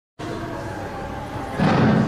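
Microphone handling noise over a steady background hum, with a loud thump and rustle about one and a half seconds in as the microphone is gripped.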